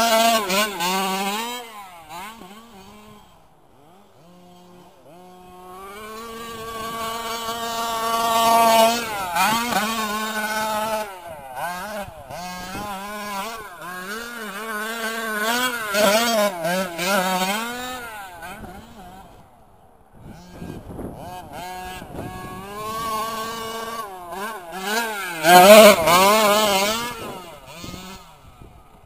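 Small two-stroke petrol engine of a Losi 5IVE large-scale RC truck revving up and down as it is driven, with pitch rising and falling through gear-free throttle blips. It is loud as the truck passes close, about nine seconds in and again near the end, and fades when it is far off.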